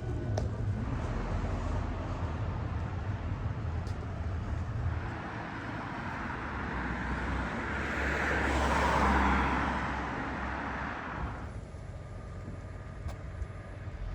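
Road traffic: a car passes by, growing louder to a peak about nine seconds in and then fading away, over a steady low rumble.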